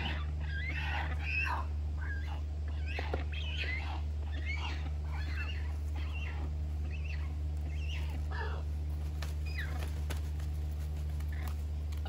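Birds chirping: many short, quick calls that rise and fall in pitch, dense for the first few seconds and thinning out later, over a steady low hum.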